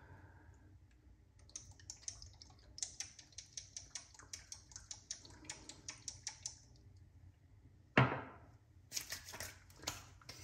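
Faint, quick run of light clicks, about five a second, for several seconds. Then one sharp slap of hands on skin and some softer rubbing: aftershave splash being slapped and patted onto a freshly shaved face.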